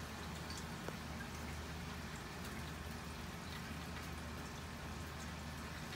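Light rain falling steadily, with scattered faint drips ticking close by, over a steady low hum.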